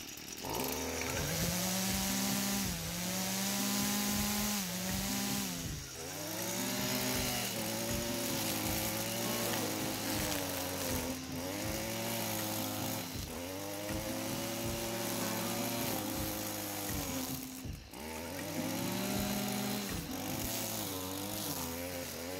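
Stihl FS 55 two-stroke petrol string trimmer running under load as its line cuts grass, the engine pitch rising and falling again and again as the throttle is opened and eased off, with brief dips every few seconds.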